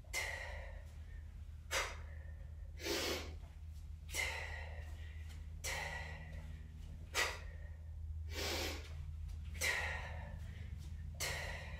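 A woman's sharp, forceful breaths, about nine of them, one every second and a half or so, timed to the reps of kettlebell swings and snatches.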